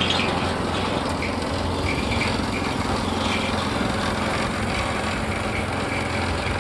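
Small gasoline engine of a custom-built gold trommel wash plant running steadily and turning the drum, with a low hum and a rattly, clattering texture.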